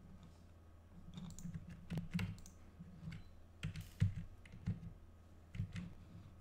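Irregular clicks and taps of a computer keyboard and mouse, over a low steady hum.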